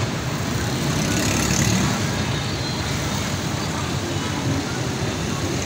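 Road traffic noise: a steady mix of car engines and tyres from passing vehicles, a little louder about one to two seconds in.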